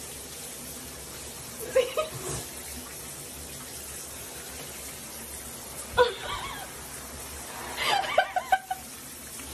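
Shower water running steadily into a bathtub, with short bursts of a person laughing about two, six and eight seconds in.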